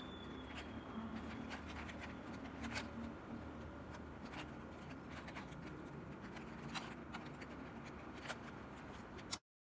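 Plastic clicks and scrapes of a 3x3 puzzle cube's layers being turned, irregular clicks every second or so over a faint low hum, while the last layer's corners are being moved into place. The sound stops abruptly near the end.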